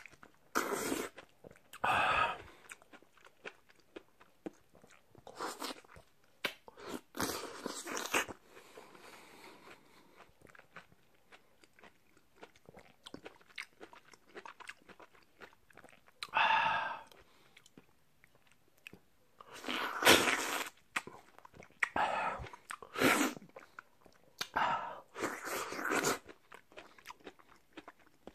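Close-up eating sounds of a person biting into and chewing a very juicy peeled cheonhyehyang, a Jeju mandarin hybrid: wet, juicy bites and chewing that come in short bursts with pauses between them.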